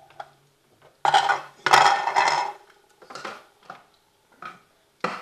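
Kitchen utensils and containers clattering as they are handled. A loud rattle lasts about a second and a half, then comes a few lighter knocks.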